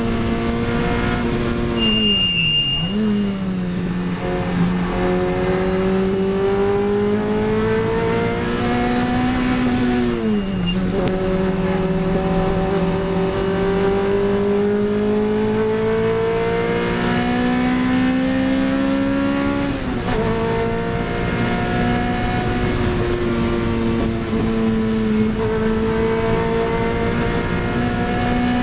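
Lotus Elise 111R's 1.8-litre Toyota four-cylinder engine at full race pace, heard from inside the cabin. It climbs steadily in pitch as it pulls through the gears, with sudden drops in pitch about three, eleven and twenty seconds in as the driver brakes and shifts. A short high beep sounds about two and a half seconds in.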